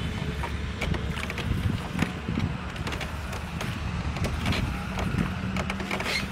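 Boat moving along the river: a steady low rumble with wind buffeting the microphone and scattered light knocks and clicks.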